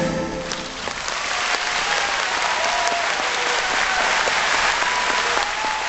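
Audience applauding, steady clapping that starts as the last bowed note of an erhu dies away in the first half second.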